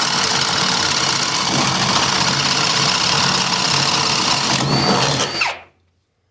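Ridgid Gen 5X brushless Stealth Force hydraulic pulse driver boring a 3/4-inch spade bit through pressure-treated wood: a loud, steady drilling noise. Near the end a brief high whine comes in, and the driver stops about five and a half seconds in.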